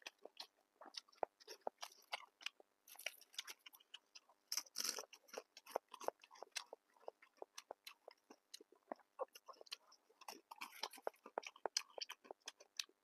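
Close-miked eating: crunchy biting and chewing, a dense run of sharp crunches several a second, loudest about five seconds in and again near eleven seconds.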